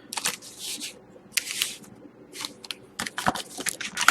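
Rustling and handling noises, with short scrapes and a few light clicks, as trading cards and packaging are handled on a table.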